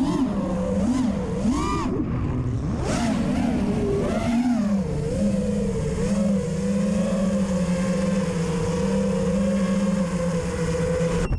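FPV miniquad's brushless motors and propellers whining, the pitch swooping up and down with the throttle for the first few seconds, then holding a steady hum until it cuts off abruptly near the end.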